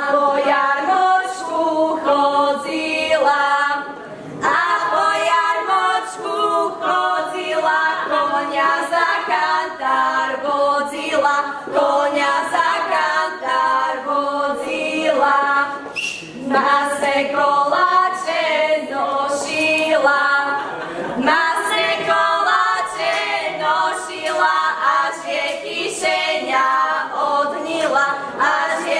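A group of young women singing a Slovak folk song together without accompaniment, in sung lines with short breaks about four seconds in and again near the middle.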